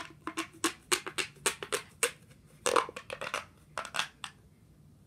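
A rapid, irregular run of sharp clicks and crackles, with one louder crunch past the middle, stopping a little after four seconds in.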